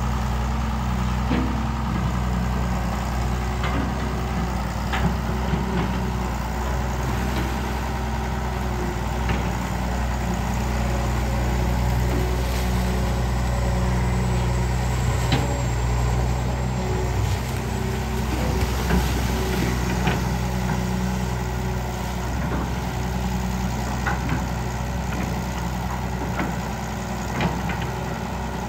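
Diesel engine of a pontoon-mounted Kobelco excavator running steadily, with a few short knocks now and then.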